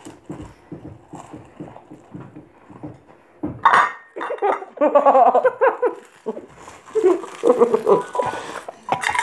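Saltine crackers being chewed with a full mouth, a quiet crunching at about four crunches a second. About three and a half seconds in, louder muffled laughing and vocalizing through mouths packed with dry cracker takes over.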